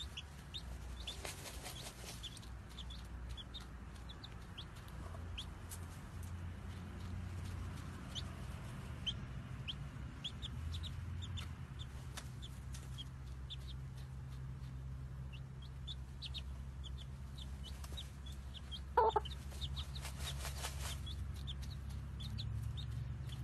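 Baby chicks peeping over and over in short high notes while brooding under a hen, over a low steady hum. Near the end the hen gives one short, louder cluck.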